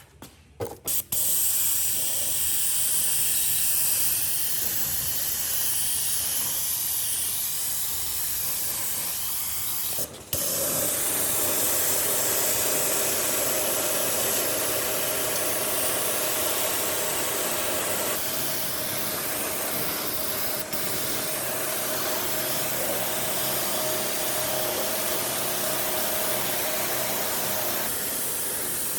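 A high-pressure spray hissing steadily, starting with a few short bursts. It cuts out briefly about ten seconds in, then runs on with a faint steady hum underneath.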